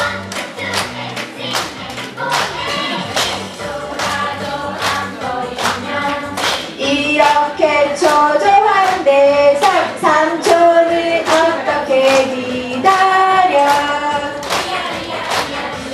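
Upbeat pop song with a steady beat and female voices singing the melody, the singing growing stronger about halfway through.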